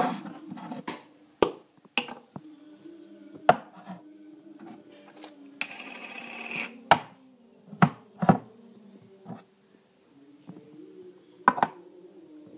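Toy slime being handled: a string of sharp slaps and clicks, with a second of rubbing noise about midway, over a faint steady hum.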